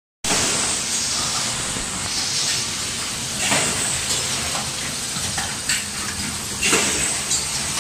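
Automatic hose clamp assembly machines running: a steady hiss over a low mechanical hum, broken by three short, sharp bursts.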